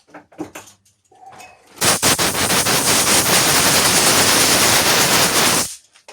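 A few light metallic clinks, then a loud blast of compressed air about two seconds in, rattling the metal chips. It runs steadily for about four seconds, clearing drilling chips off the milled part, and stops abruptly.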